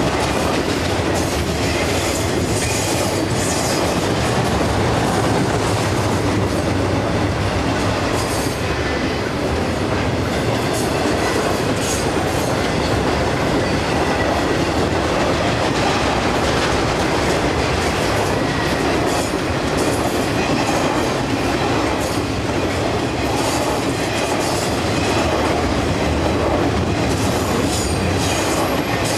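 Intermodal freight train's trailer and container flatcars rolling past: a steady loud rumble and rattle of steel wheels on rail, with brief high wheel squeals now and then.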